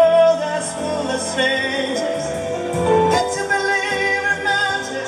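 A slow song with a singing voice, playing over loudspeakers, with long held notes.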